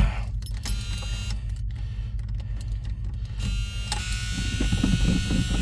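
An old Chrysler slant-six's starter motor begins cranking about three and a half seconds in: a steady electric whine with a slow rhythmic chug beneath it, over a low steady rumble.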